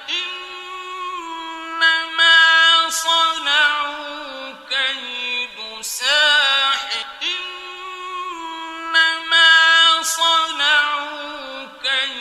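A male reciter chanting the Quran in the melodic, drawn-out tajwid style. He holds long ornamented notes whose pitch wavers, bends and steps between phrases.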